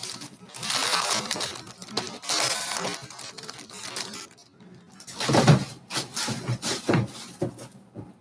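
Rustling and handling noise in two long bursts, with several dull knocks in the second half.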